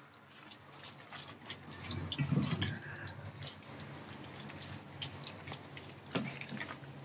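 Wet squelching and sticky clicks of bare hands kneading char siu marinade into pieces of raw pork belly, in irregular little squishes.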